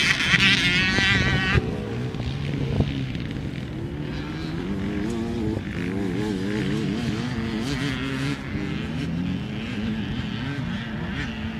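Off-road motorcycle and quad engines revving on a dirt track: a high-pitched engine note close by for the first second and a half, then lower engine notes rising and falling as the machines ride farther off.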